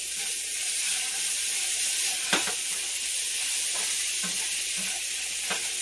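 Potatoes, carrots, celery and onions sizzling steadily as they fry, with two or three light clicks of a spoon among them.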